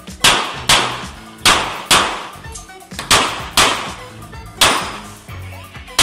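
Pistol shots fired in quick pairs about half a second apart, four pairs and then a single shot at the end: double taps on practical-shooting targets.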